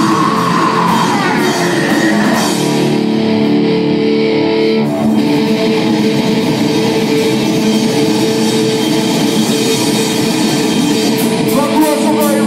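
Rock band playing loudly, with electric guitar and drum kit.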